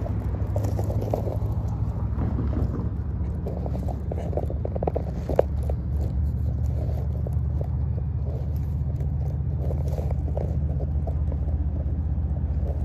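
Diesel locomotive engine running steadily out of view, a low rumbling drone with a constant hum, and light crackles over it.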